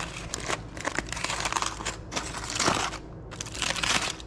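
Aluminium foil crinkling and crackling as it is peeled open by hand, in irregular rustles with a brief pause about three seconds in.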